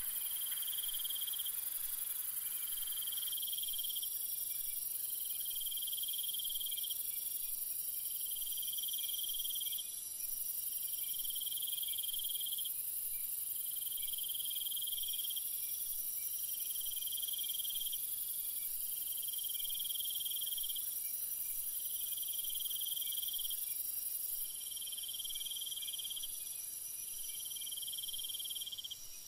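High steady insect chorus, with a chirping trill that repeats about every two seconds.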